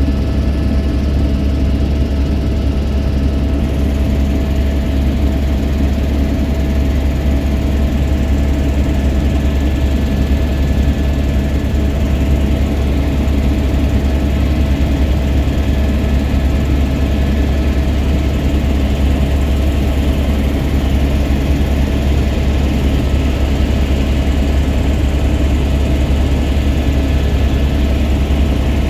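Aircraft engine running steadily in flight, a loud, unchanging low drone with a faint steady whine above it.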